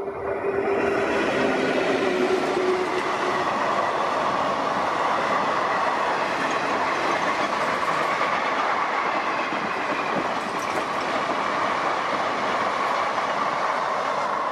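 Indian Railways express passenger train passing close by at speed: a steady, loud rumble and clatter of wheels on the rails.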